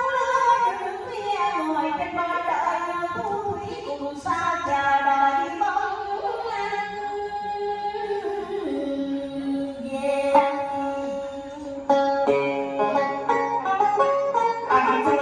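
Instrumental music interlude led by plucked string instruments playing a bending melody, starting abruptly.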